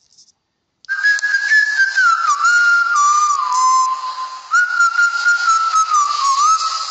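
A tune whistled as a single melody line, starting about a second in, its notes stepping and sliding down and then jumping back up.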